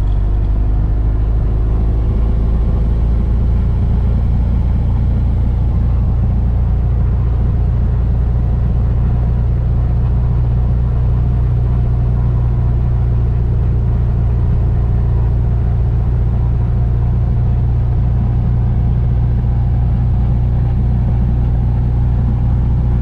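A 1975 Mooney M20F's 200 hp fuel-injected Lycoming IO-360 four-cylinder engine and propeller running at takeoff power, heard loud inside the cockpit. The engine note rises as the throttle goes forward at the start, then holds steady.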